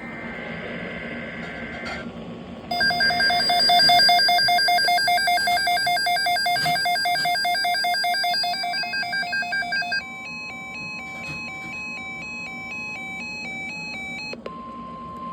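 Electronic emergency-alert tones opening an Emergency Alert System weather broadcast: a loud, rapidly warbling multi-tone signal, then a slower stepping pattern of beeps over a steady tone, and a single steady tone near the end.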